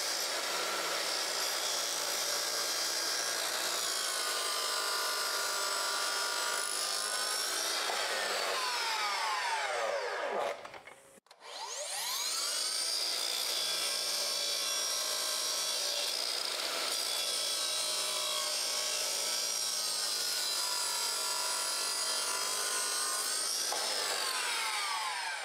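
Makita sliding compound miter saw cutting baseboard twice: the blade runs steadily through each cut, then winds down with a falling whine. There is a brief near-silent gap about ten seconds in before the saw starts again.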